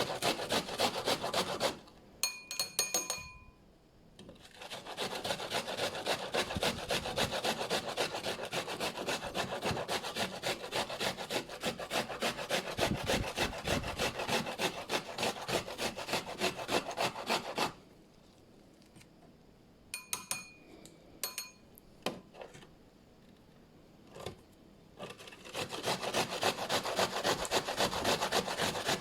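Red onion being grated on a hand grater: fast, even rasping strokes, several a second, in three long runs. The runs are broken twice by short pauses holding a few brief ringing clinks.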